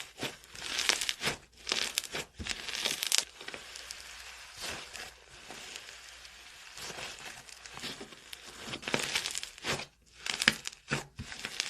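Slime being mixed and worked by hand, giving irregular bursts of sticky crackling, busiest in the first few seconds and again near the end.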